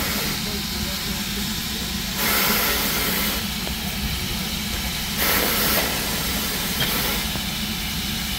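A standing LMS Black Five steam locomotive hissing steam over a steady low rumble. The hiss swells for a second or so three times, about two seconds in, about five seconds in and near the end.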